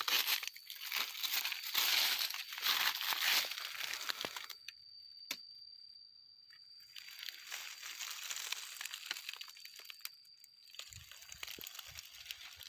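Rustling and crunching of dry leaves and foliage, loudest in the first four seconds, dropping away, then picking up again from about seven seconds in.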